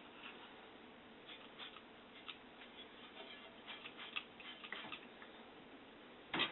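Faint scattered clicks and taps from handling a glass-cleaner spray bottle over the projector's glass stage, with one louder, short spritz-like burst near the end.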